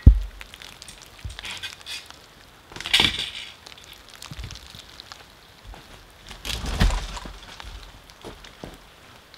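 Wood cracking and branches crashing as a hardwood tree cut at the stump breaks free and falls into neighbouring trees, where it hangs up. There is a sharp knock right at the start, a crackling snap about three seconds in, and a heavier crash with a thud around seven seconds.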